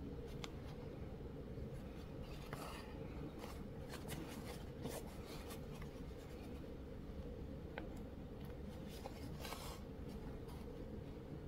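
Embroidery needle and floss drawn through cotton cloth while stitching lazy daisy petals: scattered soft scratchy swishes and ticks over a steady low hum.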